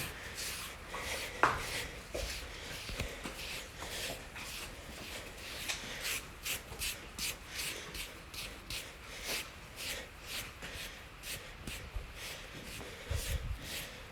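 Grooming body brush rubbing over a pony's coat in repeated quick strokes, about two a second, with a short knock about a second and a half in.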